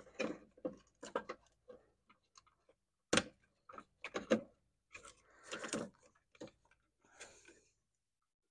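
Irregular clicks and knocks of hands fitting plastic parts back around the battery tray in a car engine bay, with a sharper knock about three seconds in and another a second later. Around the middle a short scraping rustle follows.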